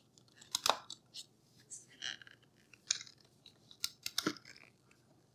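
Hard plastic clicks and clunks from a KitchenAid mini food chopper's work bowl being handled and twisted off its motor base. The loudest clicks come a little under a second in and just after four seconds in.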